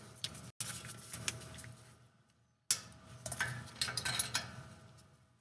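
Metal hand tools clinking and ticking: a wrench knocking against bolts around a HEMI V8's exhaust manifold, in a few short spells of light clicks with brief silent gaps between them.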